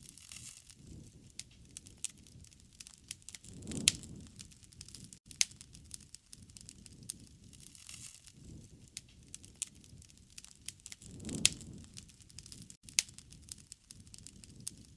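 Wood fire crackling: irregular sharp pops and snaps over a low flame rumble that swells twice, about four and eleven seconds in.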